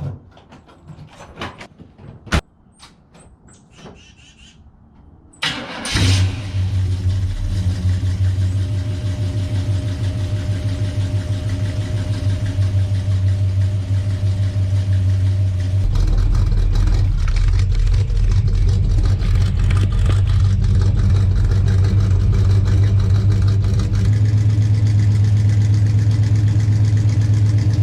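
A few clicks and knocks, then a freshly built truck engine cranks and starts about five and a half seconds in and settles into a steady idle.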